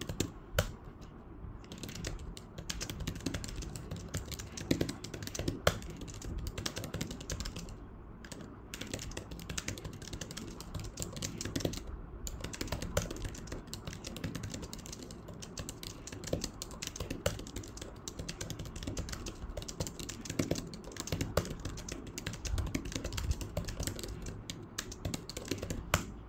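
Typing on a physical keyboard attached to a tablet: a steady run of key clicks, broken by a few short pauses.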